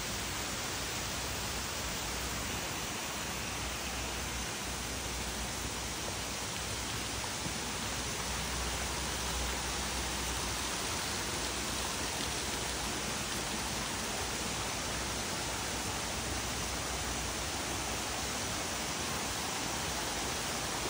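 Steady rush of flowing stream water, an even unbroken noise.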